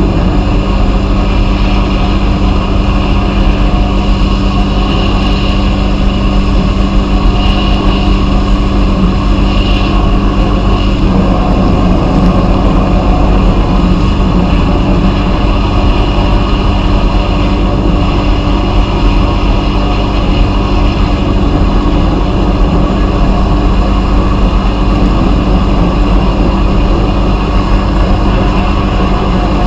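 Vapor blasting cabinet running: a loud, steady hiss of the blast over a constant machine hum.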